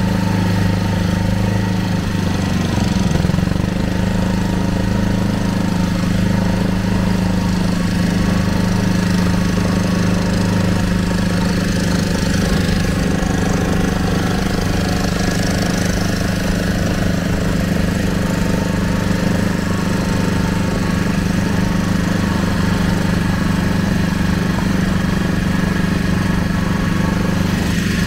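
Engine of a small wooden river boat running steadily under way, a constant even hum.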